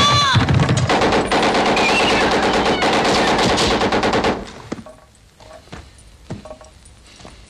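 A loud blast, then sustained automatic gunfire in a dense run that cuts off suddenly after about four seconds. A few single shots follow, quieter.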